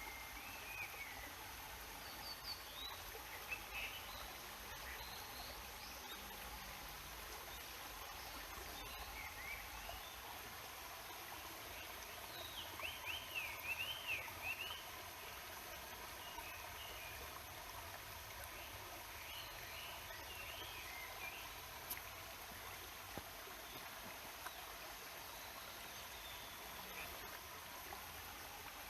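Stream babbling steadily, with birds chirping off and on over it and a quick run of chirps about halfway through.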